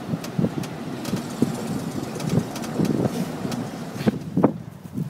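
A car engine running steadily, with a few irregular low thumps.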